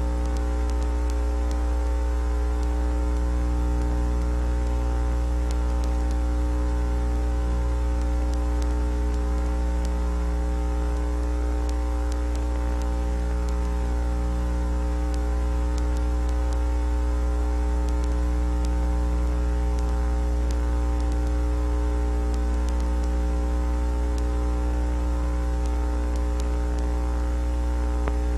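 Steady low electrical hum with several fixed tones above it and a layer of hiss.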